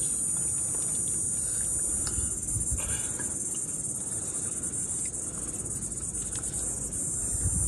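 Steady, high-pitched drone of insects, unbroken throughout.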